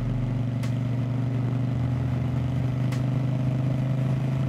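Indian Scout Bobber's V-twin engine running at a steady cruising throttle, a constant note that neither rises nor falls.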